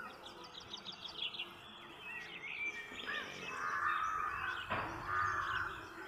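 Small birds chirping repeatedly in the background, over low background noise, with a couple of short rustles about four and five seconds in.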